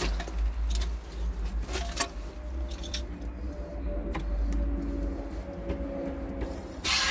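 Handheld handling noise: scattered light clicks and knocks over a low rumble. Near the end, a steady hiss starts suddenly.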